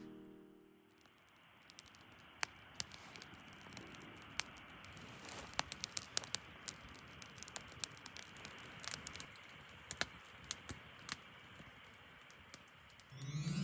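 Faint, irregular small clicks and crackles over a low hiss, busiest in the middle and thinning out near the end.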